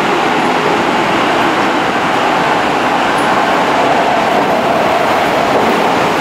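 Cabin running noise of a Yokohama Municipal Subway Blue Line 4000-series train in a tunnel: a steady, loud rumble and rush of wheels on rail and air, even throughout.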